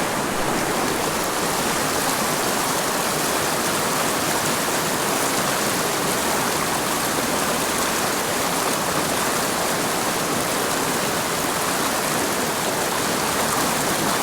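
Small mountain creek running over rocks: a steady rush of flowing water.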